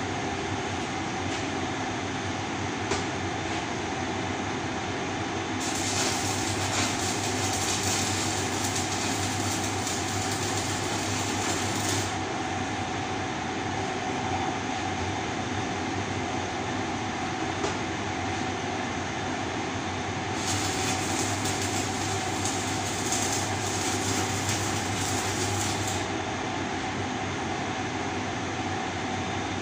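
Stick (electric arc) welding: the arc's steady crackling hiss over a low electrical hum. It grows louder and sharper for two stretches of about six seconds each, near the middle and again past two-thirds of the way through.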